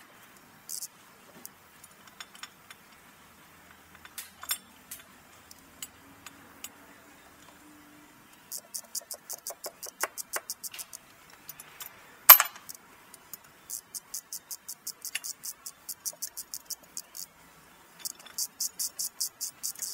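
Socket ratchet wrench clicking in quick, even runs of about six clicks a second as a bolt is turned, with one loud metallic clink of a tool on metal about twelve seconds in.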